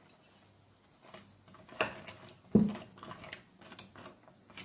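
Wooden spoon knocking and scraping against a stainless steel pan while fried semolina balls are pushed about in warm milk: scattered soft knocks, the loudest about two and a half seconds in.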